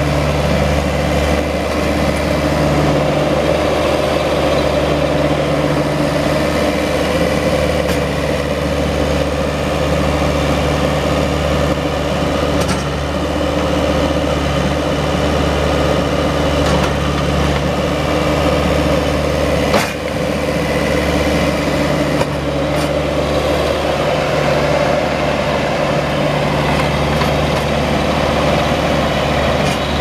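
Scat Trak 1700C skid steer's Detroit Diesel four-cylinder diesel engine running steadily, with a single short knock about two-thirds of the way through.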